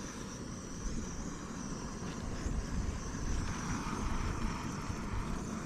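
Strong wind buffeting the microphone, a steady low rumble with a faint high-pitched whine running through it.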